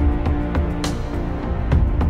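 Background music: held notes over a heavy low bass, with a sharp percussive hit a little under a second in and another near the end.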